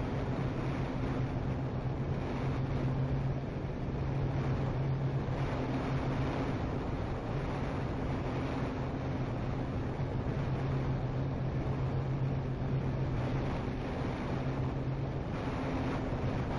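Multiplex Twinstar RC airplane's electric motors and propellers running in flight, a steady low hum that fades and strengthens slightly, with wind rushing over the onboard camera's microphone.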